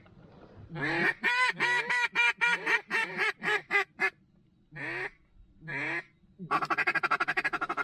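Mallard duck call blown to circling ducks: a run of about ten quacks, then two single quacks, then a fast, steady feed chuckle starting near the end.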